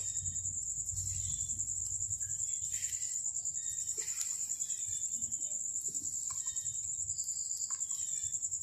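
Cricket trilling continuously in a steady, high-pitched pulsing buzz, with a few faint clicks.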